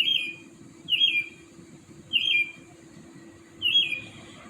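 A bird calling at night, repeating one short call four times at roughly one-second intervals. Each call is a high note that slurs downward. A faint steady low hum runs underneath.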